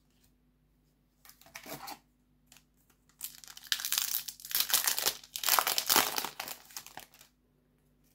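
A foil Yu-Gi-Oh! booster pack wrapper being torn open by hand. A brief crinkle comes about a second in, then a run of crackling tearing and crinkling that lasts about four seconds.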